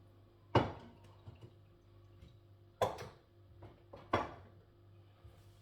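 Three sharp clatters of hard kitchen objects being knocked or set down on the stove as it is cleaned: one about half a second in, one near three seconds and one about four seconds in, each with a brief ring.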